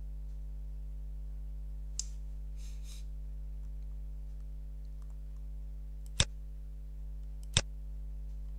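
Computer mouse clicks: a faint click about two seconds in, then two sharp clicks about a second and a half apart, over a steady low hum.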